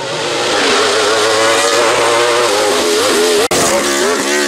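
Wolf GB08 Thunder sports prototype's racing engine running hard at high revs. There is a brief drop-out about three and a half seconds in, and after it the pitch falls and climbs again several times near the end.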